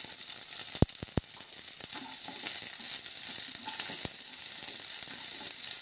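Chopped onion sizzling steadily as it fries in hot fat in a nonstick kadai while being stirred, with a few sharp taps against the pan about a second in and again near four seconds.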